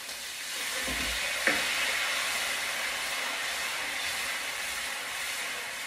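Beef stock poured into a hot pan of frying curry paste, sizzling and hissing as the liquid hits the pan. There is a single sharp click about a second and a half in, then a steady sizzle that slowly dies down.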